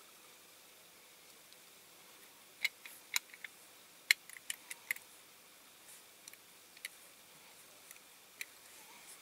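Light, sharp clicks and taps of small hard parts of a diecast toy car being handled and fitted together: a quick cluster of clicks between about two and a half and five seconds in, then a few single ticks.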